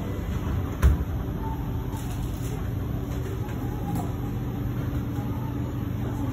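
Kawasaki-Nippon Sharyo C751B metro train's sliding doors shutting with a thump about a second in, then the train pulling away with a steady hum, heard inside the carriage.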